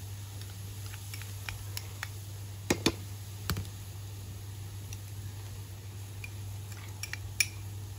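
Scattered light clicks and taps from a pan being worked with a spoon over a wood fire, with a close pair of sharper taps about three seconds in and another near the end, over a low steady hum.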